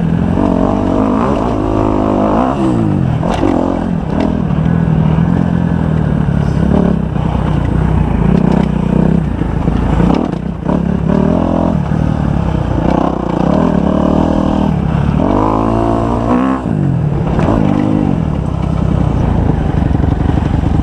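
Kawasaki 250 motocross bike's engine revving hard as it is ridden, its pitch rising and falling again and again.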